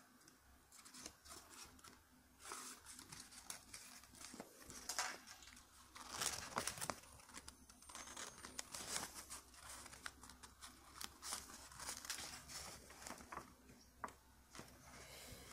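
Paper rustling and crinkling in irregular short bursts as pieces of origami paper are handled.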